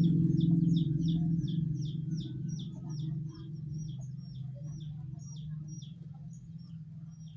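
A small bird chirping rapidly: a long run of short, high, downward-sliding chirps, about three to four a second. Under it, the low drone of a passing vehicle fades away.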